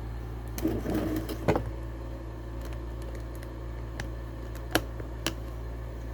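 Handling noise as a camera is turned around and set in place: a short patch of rustling and knocks about a second in, then three sharp clicks spaced well apart, over a steady low hum.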